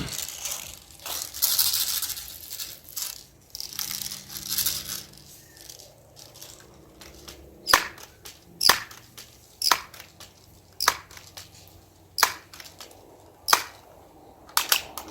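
Crosman 760 Pumpmaster air rifle being pumped up: a few hissing strokes, then a run of sharp clacks about one a second as the pump lever is worked and snapped shut.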